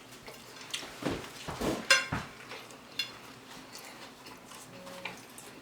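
Cutlery clinking against plates, with a few soft knocks of eating at a table.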